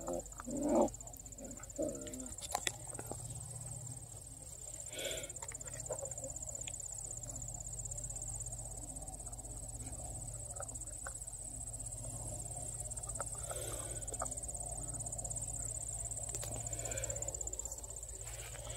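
Field insects trilling steadily in one unbroken high-pitched chorus, with a low steady rumble beneath. A few short, louder sounds stand out in the first two seconds.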